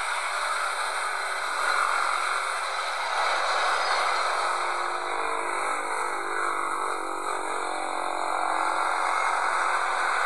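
Jet engine noise of a Malaysia Airlines Airbus A330 landing: a steady rushing sound whose tone sweeps slowly through the middle as the aircraft passes, ending around touchdown.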